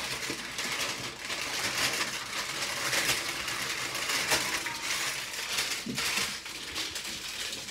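Brown baking paper crinkling and rustling as it is rolled around a portion of grated cocoyam paste and its ends are twisted shut, to wrap a kwacoco bundle.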